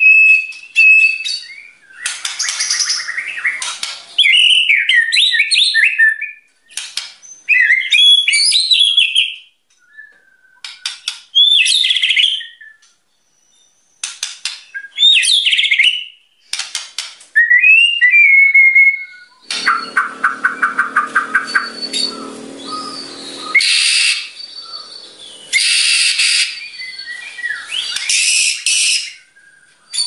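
White-rumped shama singing loud bursts of whistled phrases that slide up and down in pitch, separated by short pauses. About two-thirds of the way through comes a harsher stretch of rapid, chattering notes.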